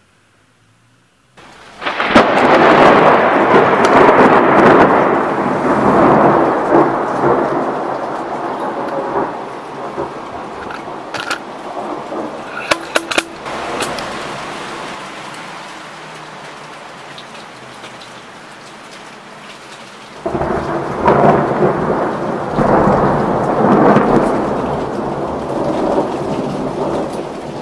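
Two thunderclaps in a torrential rainstorm. The first starts suddenly about a second and a half in and rumbles on for several seconds, fading into the steady hiss of heavy rain. A second loud clap breaks in suddenly about twenty seconds in and rolls on over the rain.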